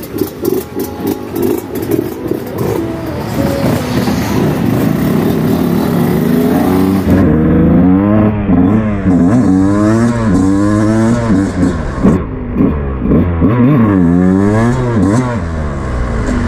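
Yamaha YZ125 two-stroke engine running with the throttle worked, then, from about seven seconds in, revved hard again and again while riding, its pitch climbing and dropping quickly with each blip.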